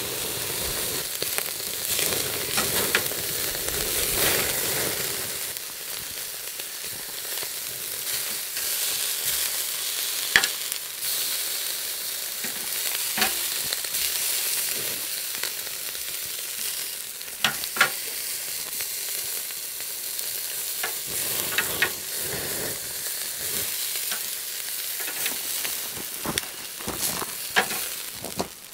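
Thick steaks sizzling on a wire-mesh grill over glowing coals: a steady hiss, fuller for the first five seconds or so, with occasional sharp crackles and pops.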